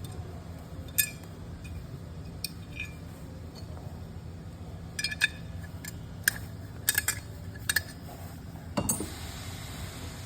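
Small metal parts and tools clinking and clicking against each other while an old Holley four-barrel carburetor is worked on by hand, in scattered sharp taps that cluster in the second half, over a steady low hum.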